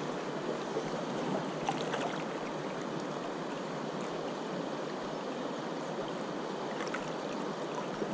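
River water rushing and flowing steadily, a constant even wash.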